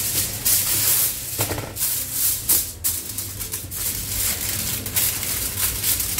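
A sheet of aluminium foil crinkling and rustling in irregular bursts as hands spread it out and smooth it flat.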